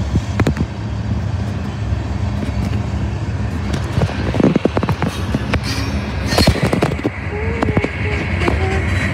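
Freight cars of a passing Norfolk Southern mixed freight train rolling by, a steady rumble with sharp wheel knocks over the rail joints. A faint high whine joins about six seconds in.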